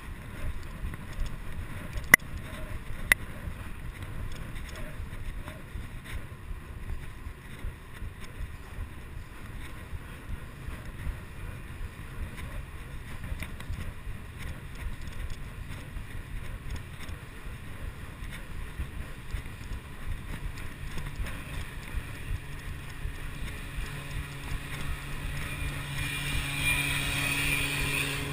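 Wind buffeting a chest-mounted GoPro HD2's microphone and the steady rumble of a bicycle riding fast on city pavement, with two sharp clicks about two and three seconds in. Near the end a small motor's hum grows louder.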